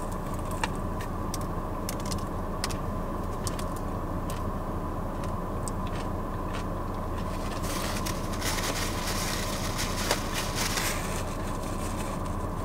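Chewing and sharp mouth clicks from eating a sandwich, over a steady low hum inside a car. From about eight seconds in, the sandwich's paper wrapper rustles for a few seconds.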